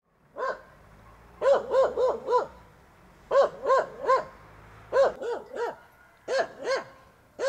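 A dog barking in short runs of one to four barks, with a pause of about a second between runs.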